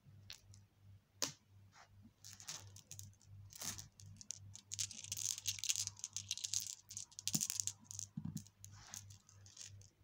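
Glass marbles clinking and rattling together in a hand, in bursts of quick high clicks, with one sharp click about a second in and the longest run of rattling in the middle.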